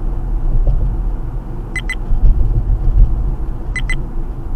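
A car driving, with a steady low road and engine rumble heard from inside the cabin. A short double electronic beep sounds twice, about two seconds apart.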